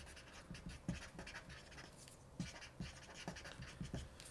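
Felt-tip marker writing on paper: a string of short, faint scratching strokes as letters are drawn.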